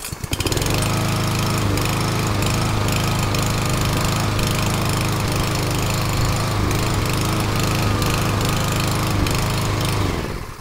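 Troy-Bilt TB235 XP lawn mower's 159cc Honda single-cylinder engine running steadily at cutting speed, with the self-propelled front-wheel drive engaged. The sound stops abruptly just before the end.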